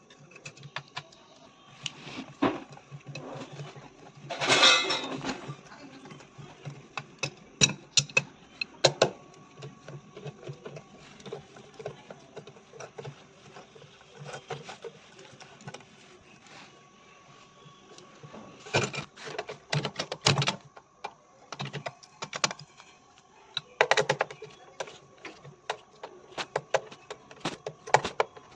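Irregular clicks, clinks and knocks of tools and metal parts being handled during hand work on a washing machine drum assembly, with a louder rattling clatter about four seconds in and bunches of knocks later on.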